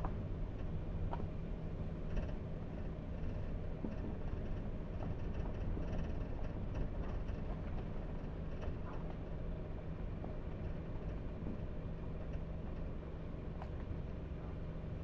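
Car driving: a steady low engine and road drone, with a few faint ticks.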